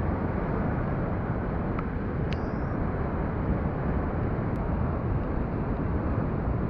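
Big river whitewater rushing steadily through a rapid, a dense even noise with no breaks.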